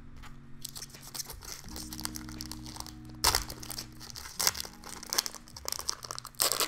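Plastic Weiss Schwarz booster pack wrapper crinkling as it is handled and torn open by hand, with a sharp rip about three seconds in and more crackles after.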